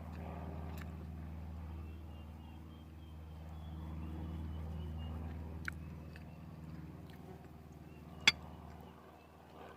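Airplane engine droning as it passes over, swelling to its loudest midway and fading away, with a sharp click near the end.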